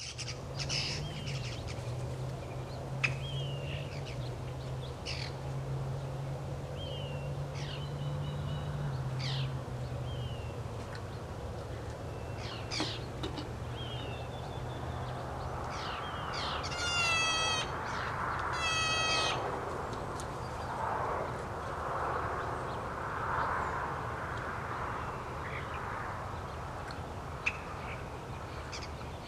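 Wild birds calling: scattered short chirps throughout, and two harsh, rapidly pulsed calls about a second long around the middle. A steady low hum runs underneath for the first third.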